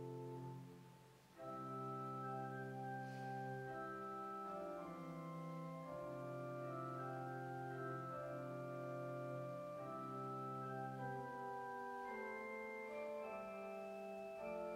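Church organ playing slow, sustained chords; the sound dips and pauses briefly about a second in, then the next phrase begins.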